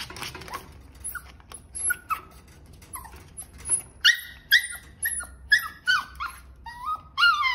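A small puppy giving short, high-pitched cries, faint and scattered at first, then loud and coming about twice a second from about four seconds in.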